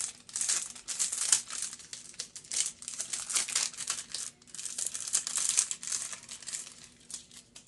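Small bag holding a card of hair clips crinkling and rustling as it is handled and opened, in irregular crackly bursts that die away near the end.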